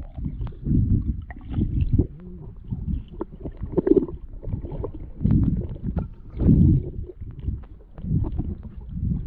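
Water sloshing and splashing close to the microphone, heard as irregular low rumbling surges about once or twice a second, with small clicks between them.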